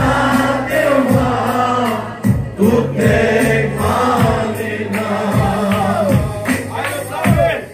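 A group of men and women singing a Christian worship song together loudly, over steady low backing notes, with a regular beat of hand clapping.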